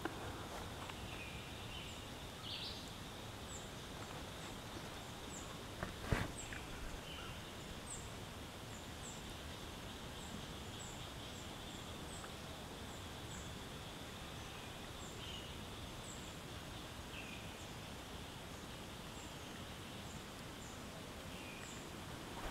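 Faint outdoor ambience: a steady hiss with short high bird chirps repeating every second or so, and a single knock about six seconds in.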